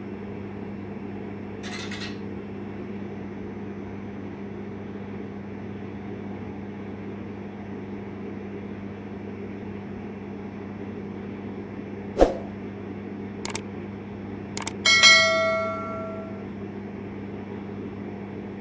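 Steady low hum, then several sharp clicks about twelve to fifteen seconds in, followed by a single bell-like ding that rings for about a second and a half.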